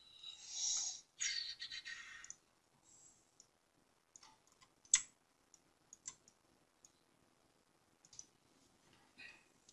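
Two short rustling noises in the first couple of seconds, then a few scattered single clicks of a computer mouse, the sharpest about halfway through.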